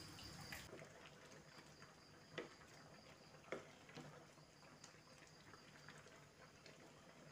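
Faint stirring of a thick coconut-milk curry with a wooden spatula in a metal pot, with a few sharp knocks of the spatula against the pot.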